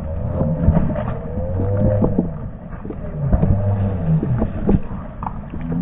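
Running footsteps and gear knocks of airsoft players on pavement, over low wavering droning tones that swell and fade every second or so.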